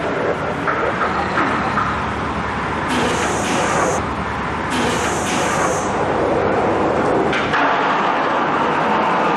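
Skateboard wheels rolling on a concrete parking-garage ramp: a loud, steady rumble with hiss, with two brief hissier stretches about three and five seconds in.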